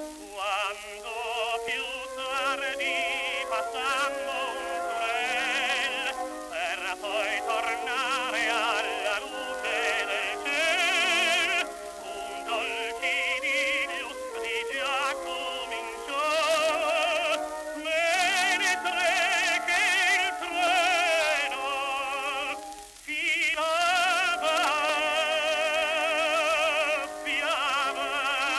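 Music played from a 1921 Victor acoustic-era 78 rpm disc of a Neapolitan song for tenor with orchestra. The sound is thin, with the top end cut off, and record surface hiss runs over it.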